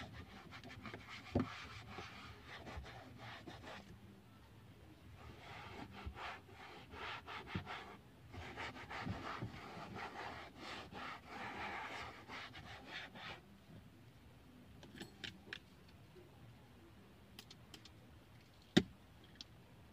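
Foam pad rubbing back and forth over a plastic car dashboard, spreading Armor All protectant in bursts of quick strokes. The wiping fades in the last few seconds, and there is one sharp knock near the end.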